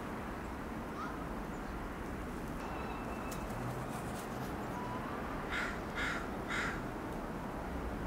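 A crow cawing three times in quick succession, over a steady low background rumble.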